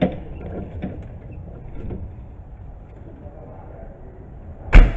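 A fire engine's metal equipment compartment door shut with one loud bang near the end, after a few light knocks and rattles of gear being handled.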